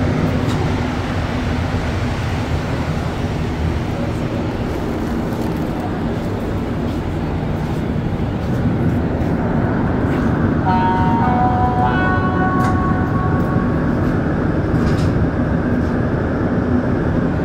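Montréal Métro MR-73 rubber-tyred train heard from inside the car, with a steady running and machinery rumble as it stands at a station. About ten seconds in, a short series of stepped electronic tones sounds for about three seconds.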